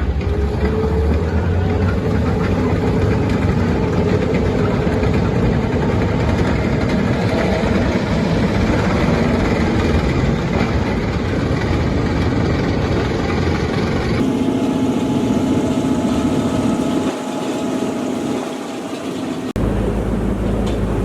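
Heavy engine of an amphibious assault vehicle running steadily. The sound changes abruptly twice, about two-thirds of the way in and again near the end, where it drops back in louder and lower.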